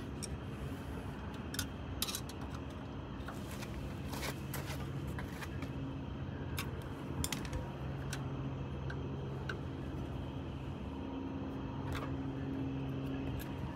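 Scattered light metallic clicks and taps of a screwdriver working on a distributor's breaker points, over a steady low hum.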